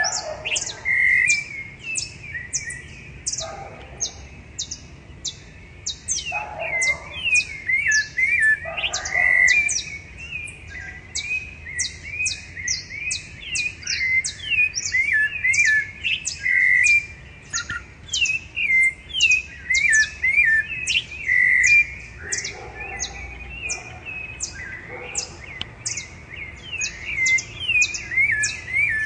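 Rufous-bellied thrushes (sabiá-laranjeira) singing at dawn. Several birds give short, fluty, warbled phrases that overlap one another, over a steady run of thin, high notes repeating about two or three times a second.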